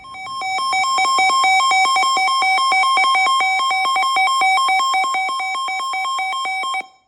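Electronic weather-alert tone: a loud two-pitch warble, pulsing rapidly and evenly, cutting off abruptly near the end.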